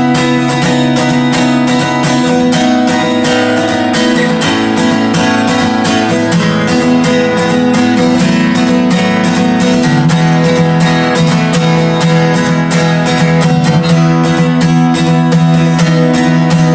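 Bentivolio 1501 all-solid acoustic guitar with Indian rosewood back and sides, strummed in a steady rhythm, moving to new chords a few times.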